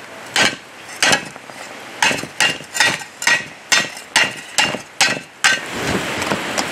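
Hammer blows on the bent steel blade of an old post hole digger held over an anvil horn, straightening it: about eleven ringing metal strikes, a second apart at first and then two or three a second, stopping about five and a half seconds in.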